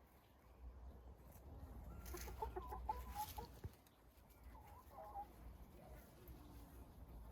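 Domestic hens clucking quietly, a cluster of short calls a couple of seconds in and a few more around the middle.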